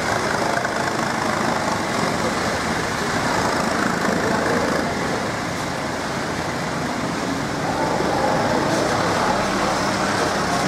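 Hino RK tour bus's diesel engine running as the bus drives slowly away, amid steady traffic noise.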